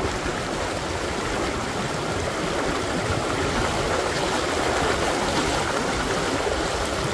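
Fast river current rushing steadily.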